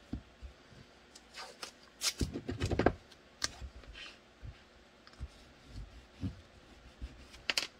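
Hands pressing and smoothing blue painter's tape over a taped-up pistol and shifting it on a cutting mat: scattered rustles, crinkles and light taps, busiest about two to three seconds in, with a few sharp clicks.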